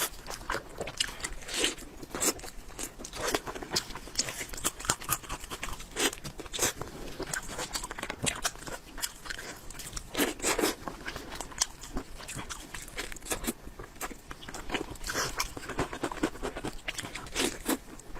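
Close-miked eating: a person biting and chewing crunchy food, with many quick, irregular crackling crunches.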